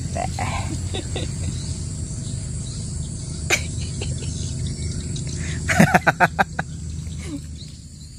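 Steady chirring of crickets and other insects, with a quick run of sharp clicks about six seconds in that is the loudest sound.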